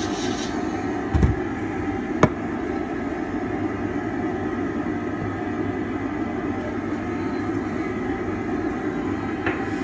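Dental lab bench dust extractor running steadily, with two short knocks about one and two seconds in.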